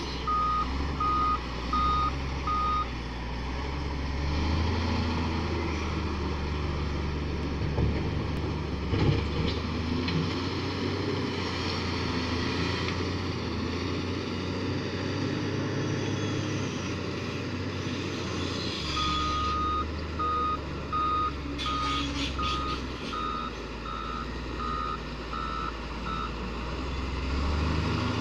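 Komatsu WA300 wheel loader's diesel engine running while it works a stockpile. Its reversing alarm beeps in a steady series at the start and again for about seven seconds in the latter part.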